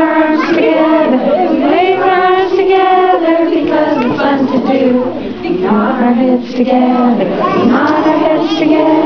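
A group of adults and young children singing a children's action song together.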